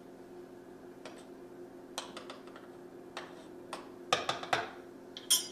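Light clicks and taps of a metal spoon scooping powdered peanut butter from its jar and knocking against the jar and a mixing bowl, with a cluster of taps about four seconds in and a sharp ringing tink near the end.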